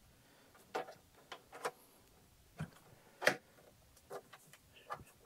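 About eight light, scattered clicks and knocks, the loudest a little past three seconds in: the clamps on a Cutie Breeze quilting frame's carriage being pushed against a sewing machine and pressed down to lock.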